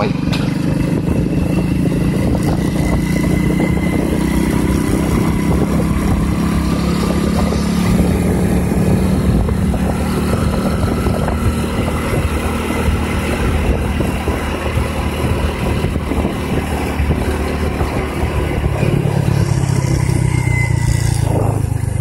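Vehicle engine running steadily at a cruise, with wind and road noise.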